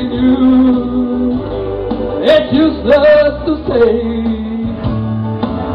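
Slow country-style ballad played from a backing track, with held bass notes and some sung notes over it between the lead vocal lines.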